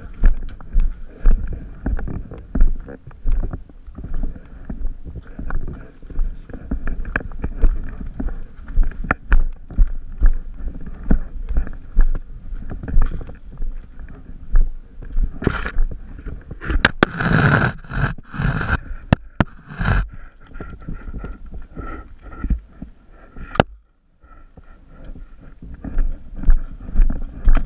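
Action-camera sound of a player on the move: irregular thumps, knocks and rustling from footsteps and handled gear, with wind buffeting the microphone. A louder, denser burst of noise comes about two-thirds through, and the sound cuts out briefly near the end.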